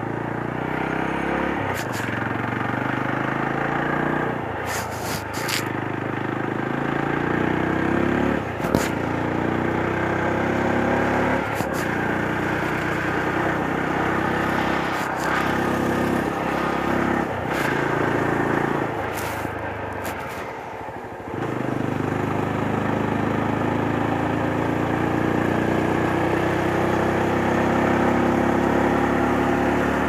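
Yezdi Roadster's 334 cc single-cylinder engine under way, its pitch climbing in several pulls, each broken by a sharp drop as the throttle is eased or a gear changes. It sags about two-thirds through, then climbs in one long, steady rise. Short clicks come now and then.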